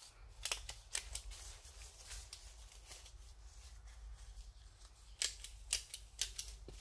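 Clear plastic greenhouse film being handled against a metal roof rail: crinkling with a series of sharp clicks, a cluster in the first second or so and another about five to six seconds in.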